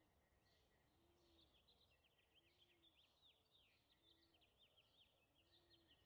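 Near silence: faint ambience with soft, quick bird twittering through the middle.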